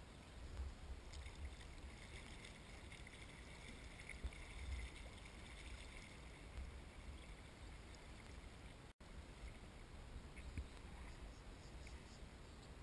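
Faint sounds of a kayak being paddled down a river: the paddle dipping and water running past the hull, over a low rumble of wind on the bow-mounted camera's microphone.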